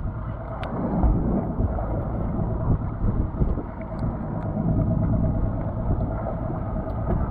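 Steady wind and water noise on a small boat at sea: a low rumble with a faint steady hum over it and a few small clicks.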